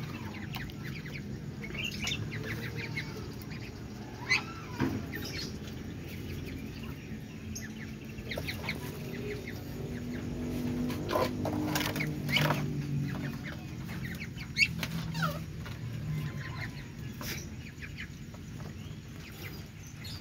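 Ducklings feeding greedily on scattered grain, their bills pecking and clicking at the ground, with a few short peeps.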